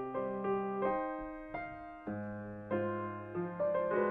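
Grand piano playing a slow classical piece: notes and chords struck about every half second, each ringing on and fading before the next.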